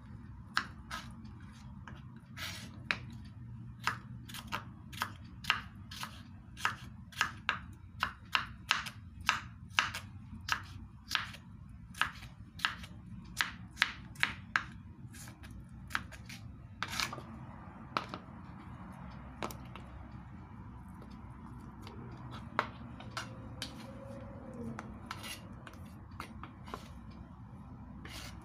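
Kitchen knife slicing a red bell pepper into strips on a cutting board, a sharp tap each time the blade strikes the board. The taps come about twice a second for most of the first half, then thin out to occasional single taps.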